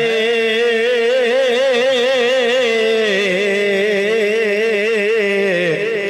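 A man's voice chanting a marsiya, holding one long melismatic note with a steady wavering vibrato over a steady lower tone, gliding down near the end.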